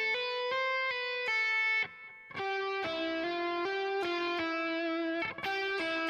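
Electric guitar playing a single-note legato run down a major scale, the notes sustained and joined smoothly at about four a second, with a short break about two seconds in.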